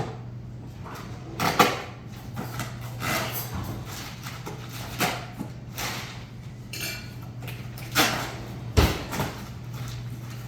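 Irregular knocks, light clatters and short rustles of objects being handled, over a steady low electrical hum.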